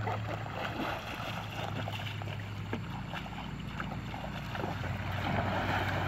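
Water splashing as a person wades fast through shallow river water, with a bigger splash near the end as she plunges in. A steady low hum runs underneath.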